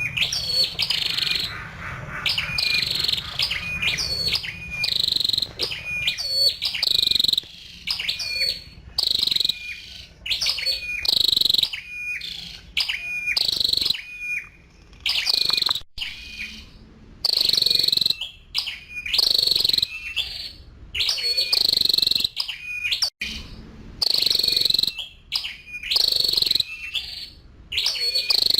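Female flowerpecker calling over and over: short, high, sharp call notes in quick groups, repeated every second or two.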